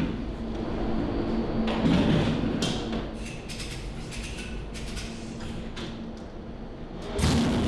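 Clanks, knocks and sliding-door-like thumps of work in an engine dyno cell over a steady hum. About seven seconds in, a race engine on the dyno starts and runs loudly.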